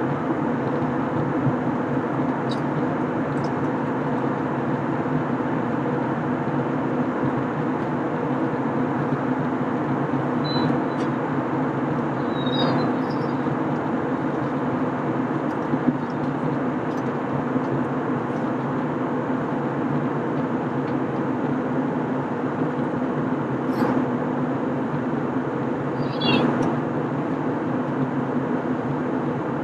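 Steady cabin noise of an Airbus A321 in flight: airflow rush and engine hum, unchanging. A few faint, short high chirps or squeaks come through near the middle and again near the end.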